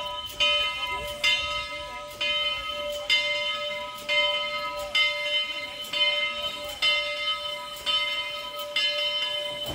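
Southern 4501's locomotive bell ringing steadily, struck in an even rhythm of about one stroke a second, each stroke ringing on into the next. Southern 4501 is a 2-8-2 Mikado steam locomotive.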